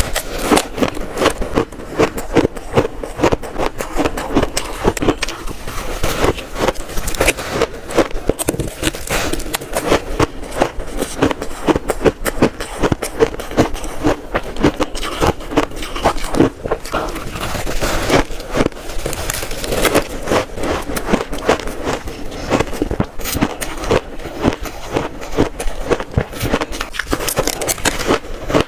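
Close-miked biting and chewing of shaved ice: a dense run of crunchy crackles and scrapes, several a second.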